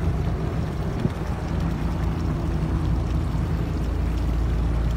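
Fishing boat's engine running with a steady low drone as the boat motors slowly past, growing a little louder in the second half.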